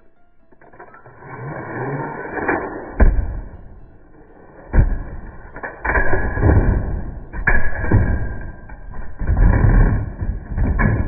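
Beyblade spinning tops grinding and clashing in a plastic stadium, with sharp hits about three seconds in, near five seconds and about seven and a half seconds in; one of the hits bursts the Guilty Longinus top apart.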